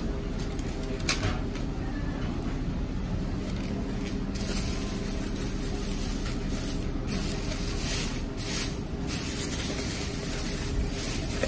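Thin plastic carry bag rustling and crinkling in short bursts as it is untied and pulled open, starting about four seconds in, over a steady low background rumble.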